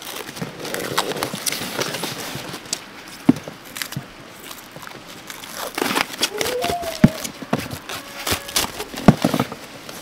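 Plastic cling film being pulled off its roll and pressed onto folded cardboard: crinkling and crackling with sharp clicks and taps, the loudest taps about seven and nine seconds in.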